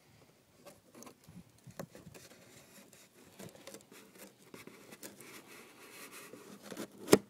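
A knife scraping and picking at the taped seam of a cardboard box: faint, scattered scratches and small taps, with one sharp, loud knock near the end.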